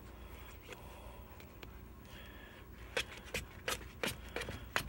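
A utensil stirring a foamy mix of glue and shaving cream in a bowl: soft scraping at first, then, from about three seconds in, sharp clicks of the utensil against the bowl, roughly three a second.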